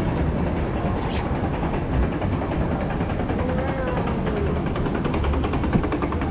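Steady rumbling background noise with faint distant voices mixed in, and a brief hiss about a second in.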